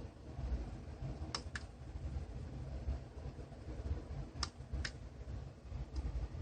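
A few light, sharp plastic clicks, mostly in pairs a fraction of a second apart, as the HP DeskJet 6940 inkjet printer is switched off, over a steady low rumble.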